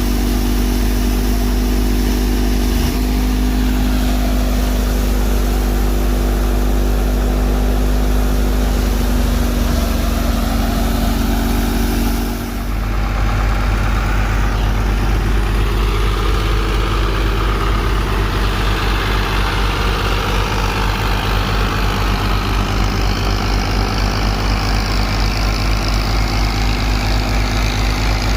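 Tractor engine running steadily, driving a wheat thresher. About halfway through the sound dips briefly, then carries on with an even pulsing.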